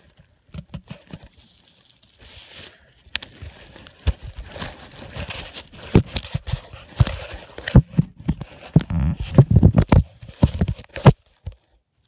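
Rustling, crackling and sharp knocks of grass and leaves brushing against a handheld phone's microphone, with handling bumps. It is sparse at first and grows dense and loud in the second half, with the heaviest knocks about seven to eleven seconds in.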